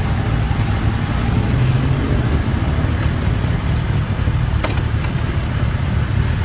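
Motorcycle and scooter engines running in street traffic, a steady low rumble, with one sharp click about two-thirds of the way through.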